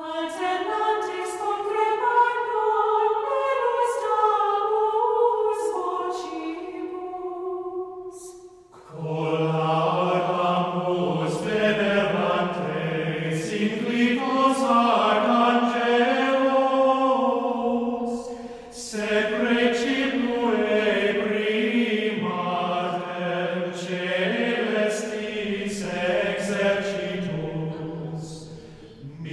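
Choir singing a slow sacred chant in long held phrases, breaking briefly about nine seconds in and again around eighteen seconds, with lower voices coming in after the first break.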